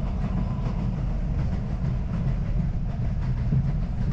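R62A subway train running at speed between stations, heard from inside the lead car: a steady low rumble with wheels clicking over the rail joints.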